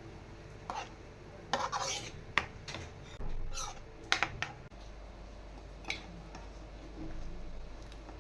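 Metal kitchen utensils clinking and scraping against cookware in a series of short clatters, with one longer scrape a little past the middle.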